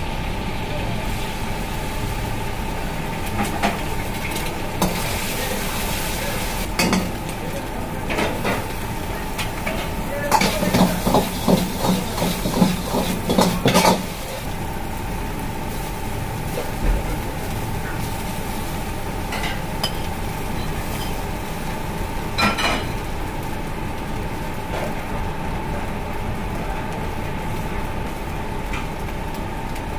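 Egg, vegetables and rice stir-frying in a carbon-steel wok on a commercial gas range: sizzling over a steady burner roar, with a scattered clatter of the metal ladle. About ten seconds in, a few seconds of rapid clanging and scraping as the ladle works the wok.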